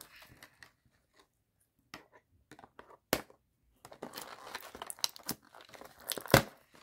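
Clear plastic doll packaging crinkling and rustling as hands work at it, with scattered crackles. A sharp snap comes about three seconds in and a louder one near the end.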